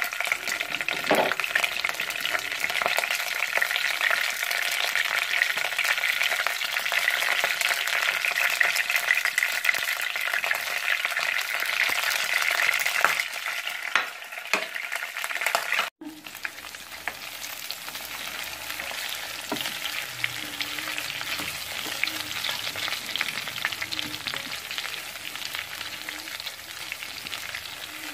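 Food frying in hot oil in a nonstick pan: the oil sizzles steadily, first around the mustard seeds and curry leaves, then around masala-stuffed brinjals, with the scrape and tap of a spatula stirring them. The sizzle is louder in the first half and, after an abrupt break about 16 seconds in, goes on quieter.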